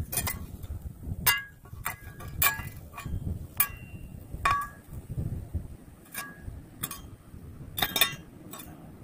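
Irregular light metallic clinks, about one or two a second, each with a short ring, over a low rumble of handling noise.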